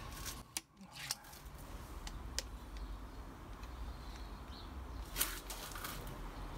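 Faint handling noises of a pistol crossbow: a few light clicks and rustles of clothing, with a louder rustle about five seconds in.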